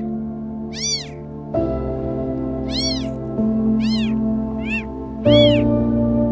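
Newborn kitten mewing five times: short, high-pitched cries that rise and fall in pitch, over soft background music of sustained notes.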